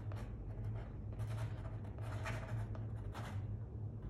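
Pen tip scratching across paper in a handful of quick short strokes, writing a signature, over a steady low hum.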